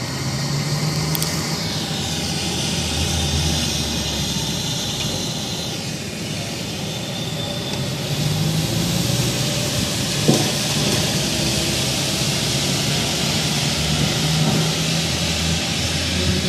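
A steady rushing noise with low droning tones underneath, presented as an unexplained 'strange sound' heard outdoors. A high tone slides downward in the first couple of seconds, and a single sharp click comes about ten seconds in.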